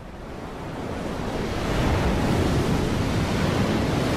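Ocean surf breaking against a rocky sea cliff, a dense rush of water that swells over the first two seconds and then holds steady.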